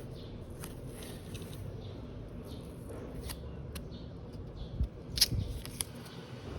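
A few scattered sharp clicks and a couple of soft knocks, made by small objects being handled, over a steady low background noise. The loudest click comes a little after five seconds in.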